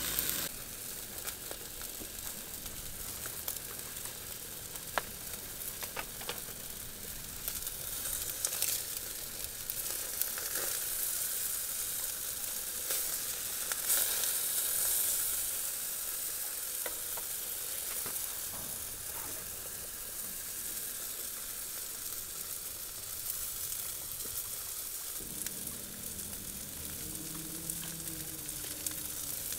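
Food sizzling and frying on the hotplate of a portable gas BBQ, with a steady hiss broken by scattered pops and crackles; the sizzle swells a little before the middle.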